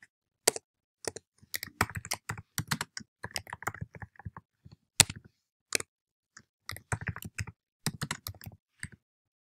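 Typing on a computer keyboard: irregular runs of quick keystrokes with short pauses between words, one keystroke about five seconds in louder than the rest.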